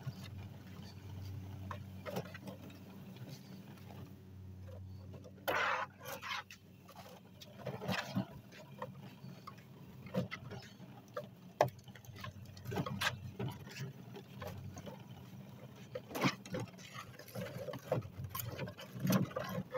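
Hoover Spin Sweeper L1400 outdoor push sweeper rolling over a driveway, its brushes sweeping up grass clippings, with irregular sharp clicks and clatters as grit and small stones hit the housing. A steady low hum runs underneath.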